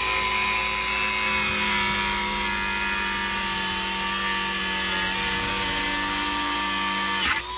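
Angle grinder running at speed, its cut-off disc grinding through a steel padlock with a steady whine. Near the end the pitch dips briefly and the sound drops in level.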